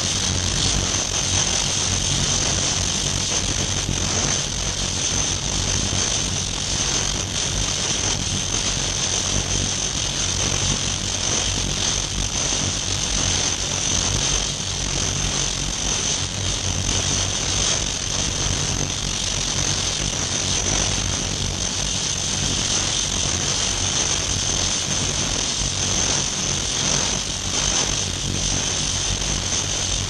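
Flow-through ultrasonic cleaning tank running: water pours from a hose into a stainless-steel tray under ultrasonic drive, giving a constant hiss with a high whine on top and a low hum underneath, unchanging throughout.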